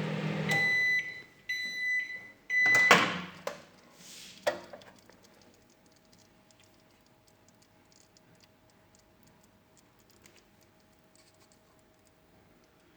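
Sharp microwave oven finishing its cycle: its running hum stops and it beeps three times, the end-of-cycle signal. A loud clack follows about three seconds in, then a couple of small clicks.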